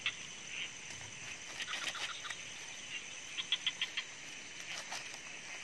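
Calling insects and frogs: a steady high insect trill, with a few short trains of rapid clicking pulses.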